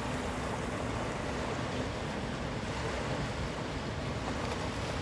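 Sea surf washing onto a beach: a steady, even rush of waves.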